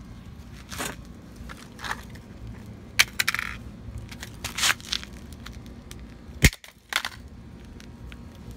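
Plastic pocket calculator being stomped on against a concrete floor: a string of separate sharp cracks and crunches, the loudest a sharp crack about six and a half seconds in.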